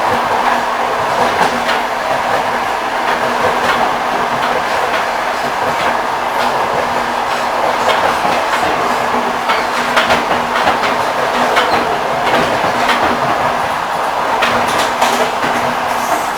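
Railway carriage wheels clattering over the rail joints as a train runs along, a steady rumble broken by frequent sharp knocks.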